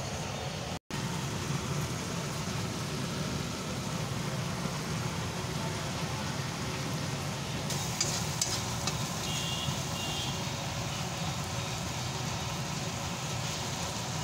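Masala frying in a metal kadhai with a steady sizzle; from about eight seconds in, a spatula stirs and scrapes against the pan with a few clicks.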